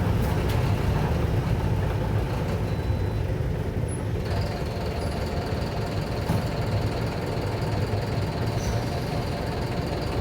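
Mercedes-Benz OF-1721 Bluetec 6 bus's four-cylinder diesel engine running steadily, with a thin high whine coming in about four seconds in.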